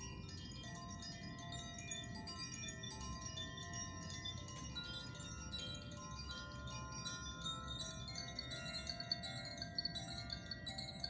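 Tuned handheld wind chimes being played, their metal rods struck again and again by the clapper. Many bell-like notes ring on and overlap into a shimmering wash, with new notes entering now and then and a few stronger strikes near the end.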